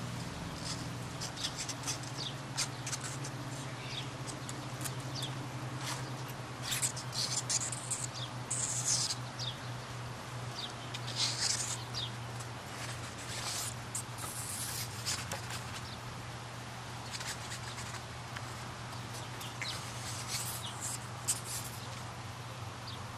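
Kittens scuffling and pouncing on a fabric blanket: scattered short, scratchy rustles, busiest in the middle and again near the end, over a steady low hum.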